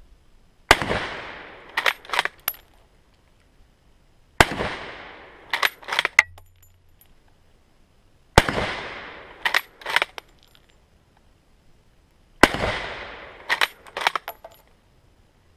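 K98k Mauser bolt-action rifle firing 8mm Mauser rounds: four shots about four seconds apart, each a sharp crack with an echo that dies away over about a second. Each shot is followed by two or three quick metallic clicks as the bolt is worked to chamber the next round.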